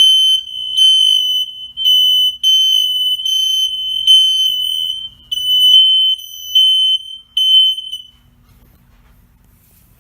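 Smoke alarm sounding on test: a loud, high-pitched tone broken into repeated pulses, which stops about eight seconds in.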